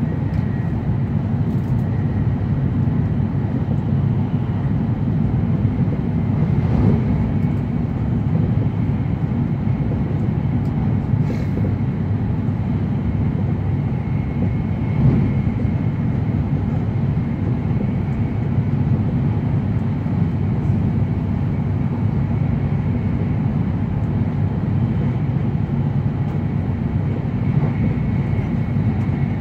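Cabin noise of an E7 series Shinkansen running at high speed: a steady low rumble and rushing with a faint high whine, and a few brief knocks.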